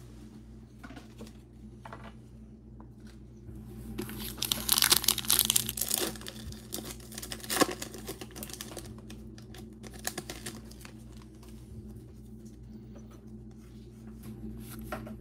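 A foil pack of 2021 Panini Playoff football cards being torn open and its wrapper crinkled, loudest in a long crackling stretch about four to six seconds in, with a sharp crack a little before eight seconds and lighter crinkling after.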